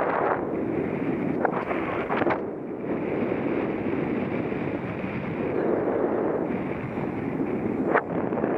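Airflow buffeting the microphone of a paraglider's camera in flight: a steady rush of wind noise that swells and eases, with a few brief knocks.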